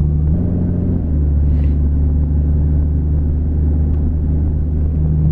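A lifted Jeep's engine running under throttle in the snow, heard from inside the cab as a steady drone. The engine note shifts briefly about half a second in, as the driver gives it gas to turn around, then holds steady.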